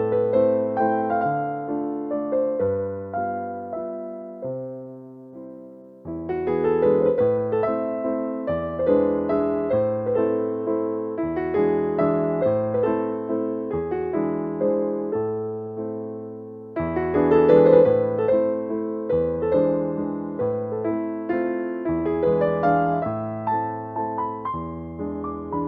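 Background piano music: a gentle melody over slow bass notes, each note struck and fading, with new phrases starting about six seconds in and again near seventeen seconds.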